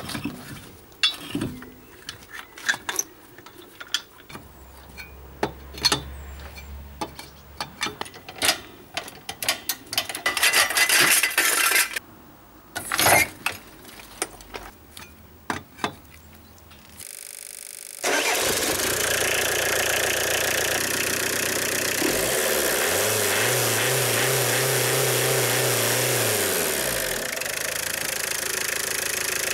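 Clicks and metal knocks as the front wheel is refitted and the trolley jack worked. Then the Renault 1.9 turbo-diesel engine runs steadily at idle with its new accessory belt fitted, its note rising and falling once midway.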